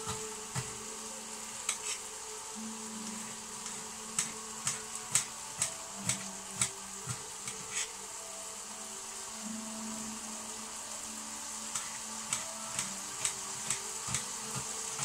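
Knife chopping onion on a plastic cutting board in irregular sharp taps, over the steady sizzle of diced potato and beef mince frying in a pan. The sizzle is the cook's sign that the pan is drying and wants more ingredients.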